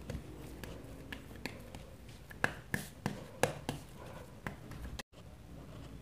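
A spatula spreading and pressing a thick, sticky jaggery and dry-fruit mixture flat in a steel plate: faint, scattered taps and scrapes.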